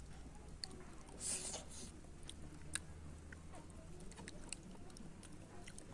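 Close-up chewing and biting, with scattered small clicks and smacks and a short, louder noise a little over a second in.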